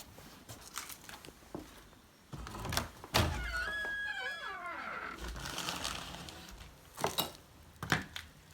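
A wooden door thumps, then its hinges creak in a long, wavering squeal that slides down in pitch. Two sharp knocks follow near the end.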